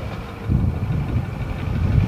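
Caterpillar 3208 V8 diesel engine of a Ford 8000 truck running. Its low rumble gets suddenly louder about half a second in.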